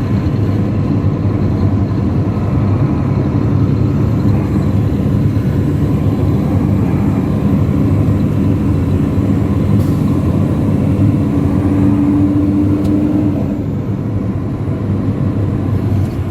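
Dump truck driving: a steady, loud engine drone with road noise, and a brief steady whine a little past the middle.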